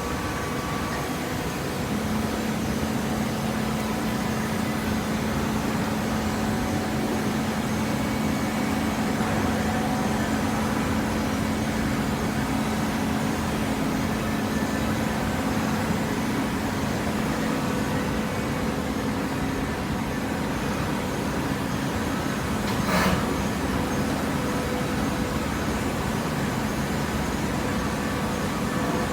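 Hydraulic baler running, its pump motor giving a steady mechanical hum. There is one short clank about three-quarters of the way through.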